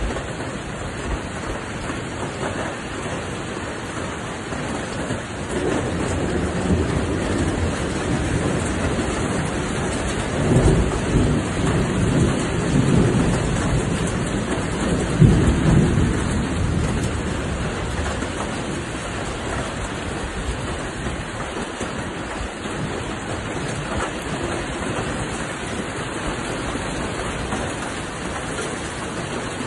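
Steady heavy rain hissing throughout. A deep rolling rumble swells in about six seconds in, is loudest around ten and fifteen seconds in, and fades away after about eighteen seconds.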